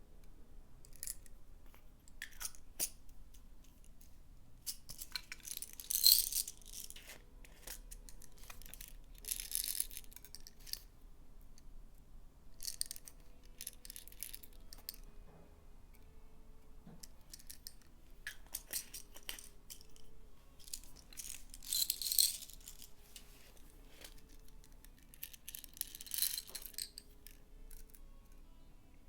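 Slime being kneaded and squished by hand, giving bursts of crackling and popping every few seconds, as pigment is worked into it. Faint background music plays underneath.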